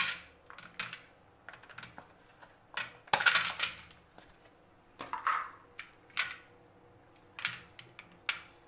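Thin clear plastic chocolate mould being flexed and twisted, crackling and popping in irregular bursts as the set chocolates come free, with a few sharp clicks of chocolate pieces being set down on a ceramic tray. The loudest crackle comes about three seconds in.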